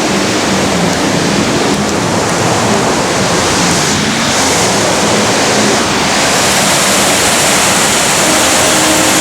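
Loud, steady rush of falling or churning water, an even roar with no breaks.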